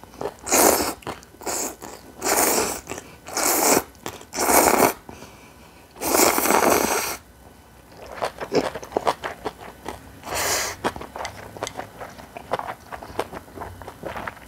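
A microphone being handled as it is taken off: a series of loud rubbing and rustling noises right on the mic, about seven in the first eleven seconds, followed by faint scattered clicks and taps.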